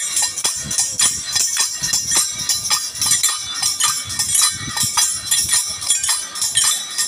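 Kamsale, the paired bronze hand cymbals of the Kamsale folk dance, struck by a group of dancers in a quick, steady rhythm: sharp ringing metallic clashes about four or five a second, with low thuds beneath.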